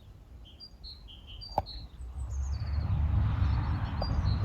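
Small birds chirping in short high notes, with a single sharp click about a second and a half in. A low rumble swells in the second half and becomes the loudest sound.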